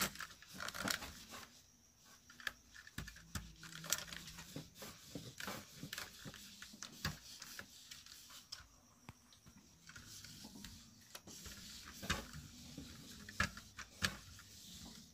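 Small handheld clothes iron pushed back and forth over a cotton mask panel on a cloth-covered table: faint rustling and scraping of fabric with irregular light clicks and taps.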